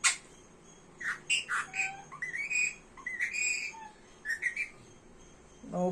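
Pet parrot calling in a string of short chirps, squawks and whistled notes, some rising in pitch, a second after a sharp click. It is answering a sung rhyme it is being taught and, as heard, does not get through the words.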